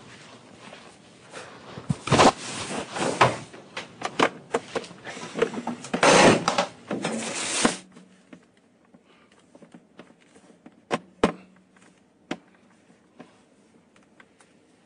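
Rustling and knocking handling noises, dense and loud for a few seconds, cutting off suddenly about eight seconds in, followed by a few separate sharp clicks.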